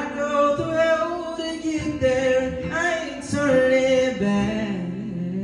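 A man singing long held notes with no clear words into a microphone, over acoustic guitar.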